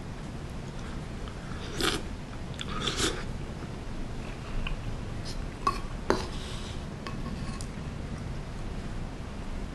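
Eating sounds: a wooden spoon scraping and clicking against a plastic takeout bowl of soup curry and a bowl of rice, with chewing. A couple of sharp clicks come about six seconds in.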